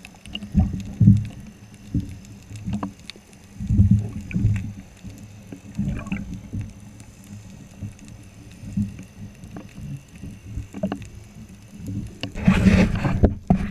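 Water sloshing and thudding against an underwater camera at the surface as a snorkelling spearfisher moves in the water, in irregular low surges. Near the end comes a louder rush of splashing and bubbles lasting about a second.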